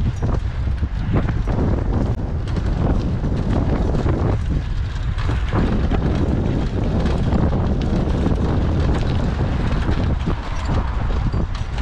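Heavy wind buffeting on the microphone of a camera riding on a moving fixed-gear bicycle, over tyre rumble and frequent short jolts from a rough path.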